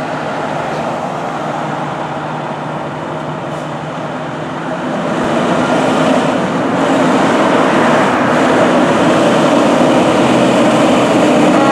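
Fire engine's diesel engine running, growing louder about five seconds in as the truck pulls out of the station bay.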